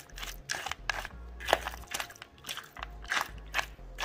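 Metal spoon stirring kibble and raw meat in a stainless steel bowl: irregular scrapes and clinks against the bowl, several a second, with the kibble crunching.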